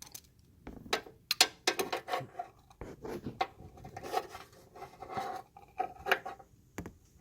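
Hand work in a car's engine bay while fitting a serpentine belt: scattered clicks and light knocks with rubbing and scraping between them, about a dozen sharp ones.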